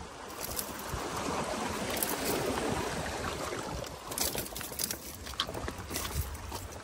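Seawater washing among shoreline boulders, a steady wash that swells slightly in the middle, with a few light taps over it.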